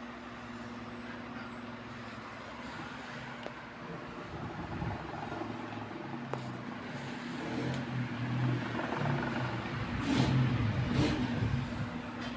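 Two Malory electric fans, a Zéfiro and a Boreal, running together: a steady motor hum under the rush of air from the blades. The sound swells louder a few times in the last few seconds.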